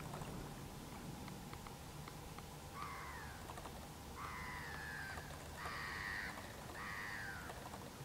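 Swans calling: four short honking calls, each falling in pitch, starting about three seconds in and spaced roughly a second and a half apart.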